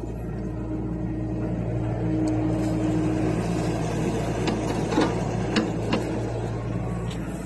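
John Deere 60G compact excavator's diesel engine running steadily under hydraulic load as the machine digs, with a few short knocks in the second half.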